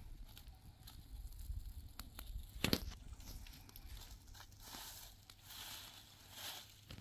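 Scattered rustling and crinkling, with a single knock a little under three seconds in.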